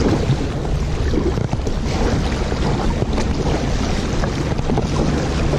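Wind buffeting a camera microphone, a steady low rumble, with water lapping and splashing against a kayak hull on choppy water.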